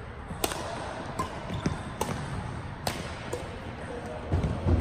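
Badminton rally: a racket strikes the shuttlecock with sharp cracks about once a second, five in all. Shoes squeak on the court, and heavier thumps come near the end.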